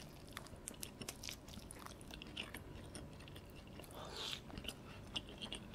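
A person chewing a mouthful of steamed dumpling with melted cheese and spicy sauce: faint, scattered mouth clicks and smacks.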